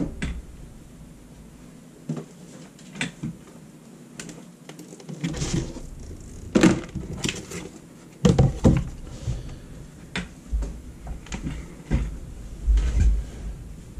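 Handling noises on a desk: a dry-erase board being lowered and slid into place, a paper sheet and test leads moved about. A string of knocks and rustles, the loudest about six and a half and eight and a half seconds in.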